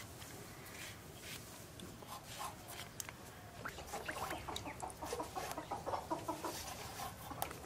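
Chickens clucking, a run of short calls that grows busier about halfway through.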